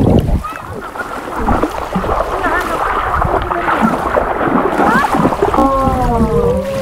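Water sloshing and splashing around legs wading in shallow sea water, with wind buffeting the microphone and faint distant voices. Near the end, background music with long, slowly gliding notes comes in.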